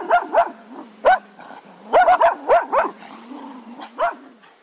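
Cocker spaniel barking: about ten short, high barks, some single and some in quick runs of two or three, over a faint steady hum.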